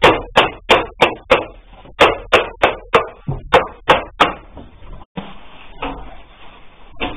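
A fast, even run of sharp knocks, about three a second, that stops about four seconds in. After that come quieter handling noises and one softer knock near the end.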